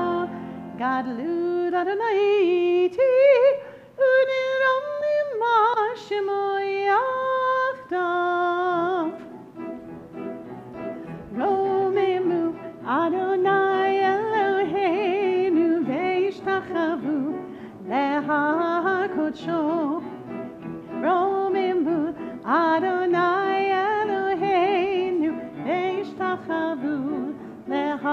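A solo voice singing a slow liturgical melody with vibrato and long held notes, over a soft sustained accompaniment.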